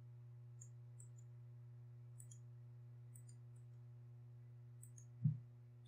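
Faint, scattered computer mouse clicks over a steady low electrical hum, with one brief low thump about five seconds in.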